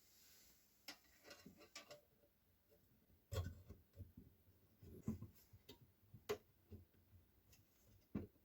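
Faint, irregular clicks and light knocks of small parts being handled and set down, with the sharpest knock about three seconds in and another just past six seconds.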